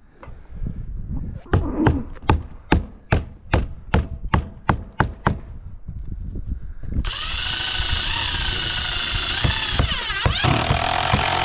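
A hammer driving nails into wooden fascia trim: about eleven sharp strikes, roughly three a second. About seven seconds in, a steady motor noise from a power tool or engine starts and keeps running.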